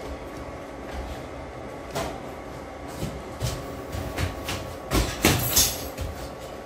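Wooden spatula and chopsticks knocking and scraping against a metal cooking pot. The knocks are irregular, with the loudest cluster about five seconds in, over a steady hum.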